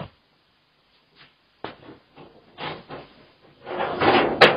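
A click, then a few dull knocks, then a louder rustling scuffle about four seconds in that ends in a sharp click.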